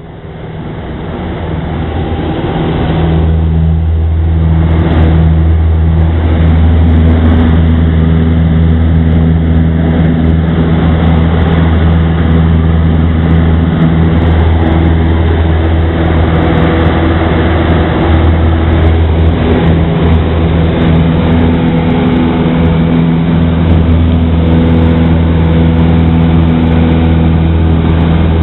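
Cessna 172's piston engine and propeller at takeoff power, heard from inside the cabin. It swells up over the first few seconds, then holds a loud, steady drone through the climb-out.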